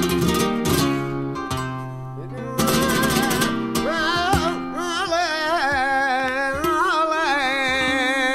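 Flamenco fandango on Spanish guitar: sharp strummed chords at first, then about four seconds in a male flamenco singer comes in with a long, wavering wordless melisma over the guitar.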